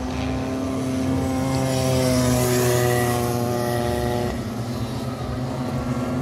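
Two-stroke Rotax Micro Max kart engines buzzing as the karts race round the circuit. The pitch sags slightly, then shifts about four seconds in.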